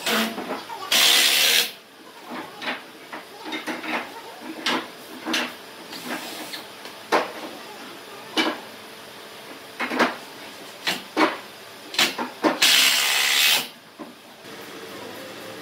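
Pallet-wood frame pieces being handled and fitted, with a run of sharp knocks and taps of wood. Two loud hissing bursts of about a second each come near the start and near the end.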